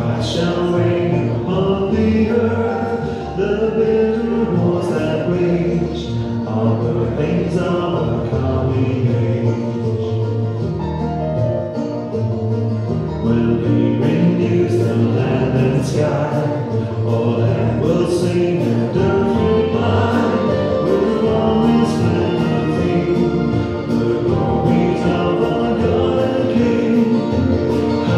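A hymn sung by a group of voices with instrumental accompaniment.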